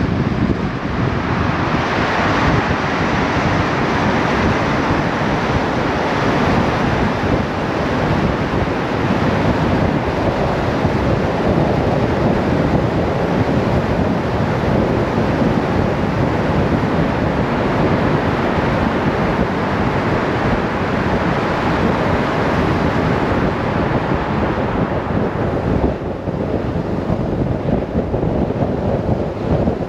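Steady wind rush on the microphone of a moving BMW R 1150 RS motorcycle, with the bike's running noise under it; the rush eases a little near the end.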